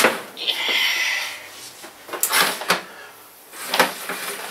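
A power cable being pulled through behind furniture: a scraping drag lasting about a second, then a few light knocks as it is handled.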